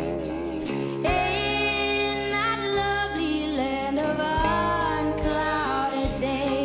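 Background music: a song with a singing voice over instrumental accompaniment and a steady bass.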